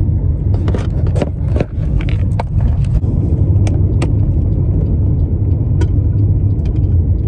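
Steady low rumble of a car on the move, heard from inside the cabin, with a few short clicks and scrapes in the first couple of seconds.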